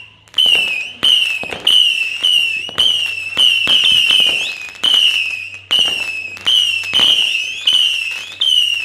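Firework cake firing whistling shots in quick succession, about a dozen in all: each a sharp pop followed by a shrill whistle that falls slightly in pitch, coming roughly every two-thirds of a second.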